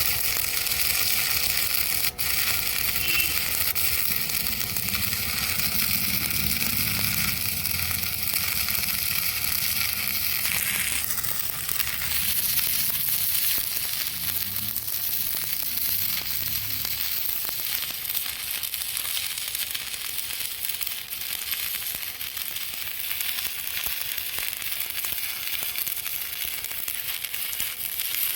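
Stick (shielded metal arc) welding arc running steadily as a bead is laid.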